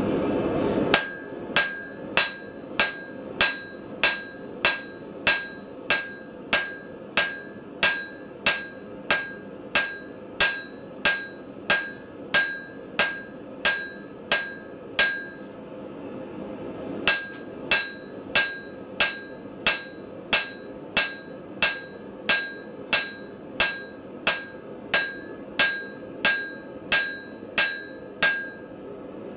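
Hand hammer striking red-hot cable Damascus steel on an anvil, drawing the bar out in length. The blows come steadily, about two a second, each with a short metallic ring. They stop for about two seconds midway, then resume.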